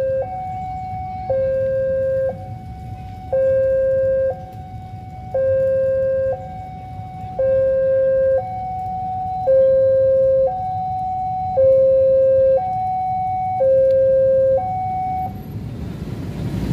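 Railway level-crossing warning alarm sounding its two-tone electronic signal, a higher and a lower tone alternating about once a second, warning that the barriers are down for an approaching train. It stops about fifteen seconds in, and the passing battery tram's wheel-on-rail rumble rises near the end.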